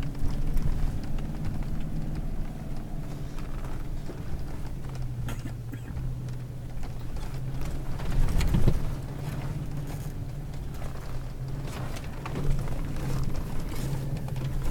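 Engine of a seven-seat four-wheel-drive Toyota running steadily, heard from inside the cabin while it drives over sand dunes, with scattered knocks and rattles and one louder thump about eight and a half seconds in.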